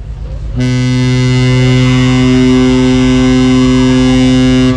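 Horn of the passenger ship KM Leuser giving one long, steady, low blast that starts about half a second in and stops near the end. It is the ship's signal for passengers to board before departure.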